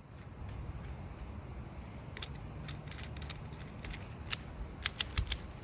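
Light clicks and taps from metal parts of a blade sharpener being handled, a few scattered, then a quick cluster of them about five seconds in, over a low steady hum.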